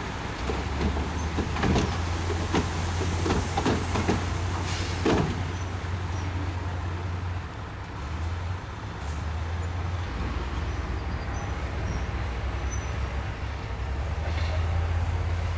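Bulldozer's diesel engine running steadily, with a series of metallic clanks and knocks in the first five seconds. The engine note shifts about eight and ten seconds in.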